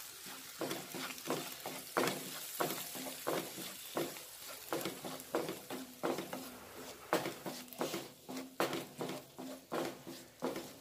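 Wooden spatula stirring and scraping a thick onion-tomato masala around a nonstick frying pan, about one and a half strokes a second, over a soft sizzle as the puree cooks into the fried onions and spices.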